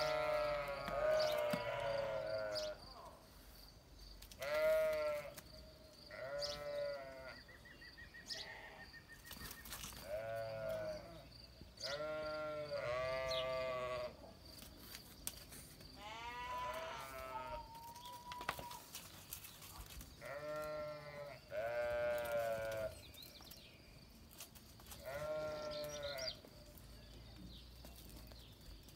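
Repeated bleating, about ten calls of one to two seconds each with short pauses between, from the sheep and goats in the pen.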